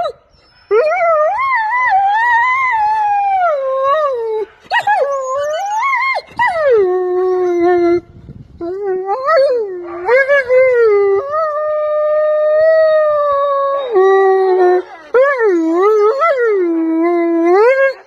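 Wolf howling: a series of long, wavering howls that slide up and down in pitch, with short breaks between them.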